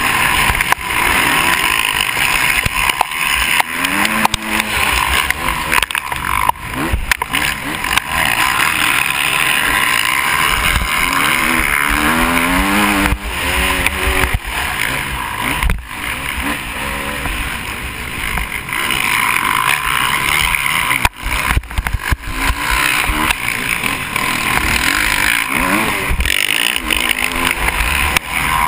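KTM 350 SX-F four-stroke single-cylinder motocross engine at race pace, its pitch rising and falling again and again as it revs through the gears, under a heavy rush of wind noise on the helmet-mounted camera.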